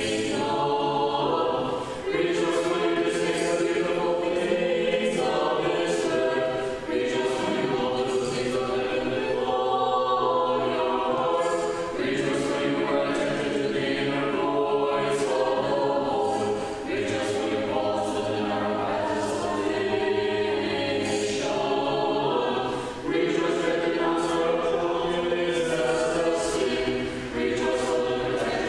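A small choir singing Orthodox church chant a cappella, several voices together, in phrases with brief breaks between them.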